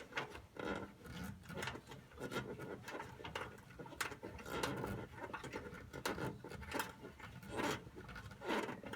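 Hands working a dryer's thermal fuse out of its mount: irregular scraping, rubbing and small clicks of plastic against sheet metal.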